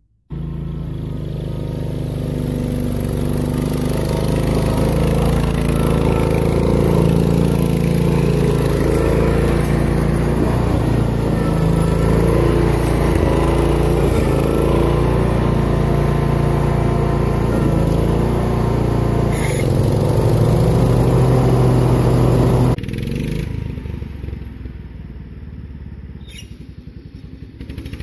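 Allis-Chalmers 712H garden tractor's engine running steadily, freshly filled with oil, on a test run. About 23 seconds in it drops suddenly to a quieter, duller sound, then grows louder again near the end.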